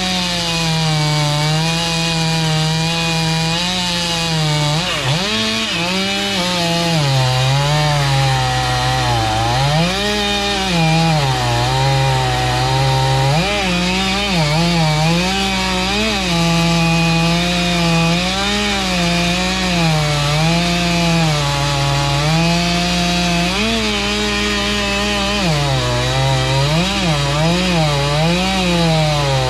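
Stihl 500i fuel-injected two-stroke chainsaw with a 36-inch bar, cutting a large dead oak log at full throttle. Its pitch sags and wavers under the load and climbs back again and again, over a steady low hum.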